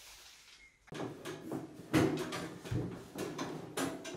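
A quick run of knocks, clatters and rattles as long metal frame parts are handled and knocked against each other on a wooden floor, starting about a second in, with the loudest knock about two seconds in.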